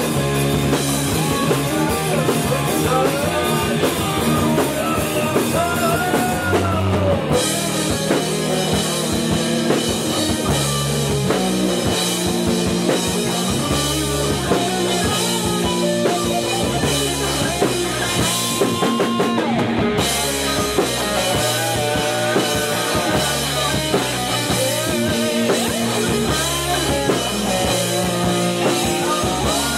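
Heavy metal band playing live in rehearsal: distorted Ibanez electric guitar, electric bass and a drum kit, with a vocalist singing into the microphone near the end.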